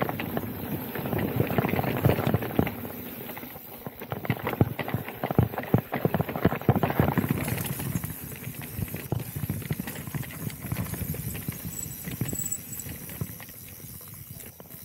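Specialized Turbo Levo e-mountain bike rolling fast down a dirt trail: knobby tyres crunching over the dirt while the chain and frame rattle and clatter over bumps, busiest in the first half.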